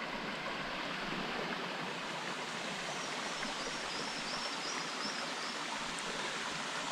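Steady rushing of flowing water from a forest stream or waterfall, an even noise with no breaks. A faint high wavering chirp sits over it around the middle.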